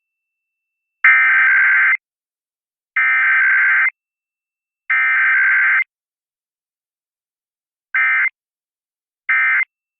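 Emergency Alert System SAME digital header: three bursts of about a second each, a second apart, each a harsh buzzing warble of two rapidly alternating tones. Near the end come two short bursts of the same sound, the end-of-message code, with no attention tone in between.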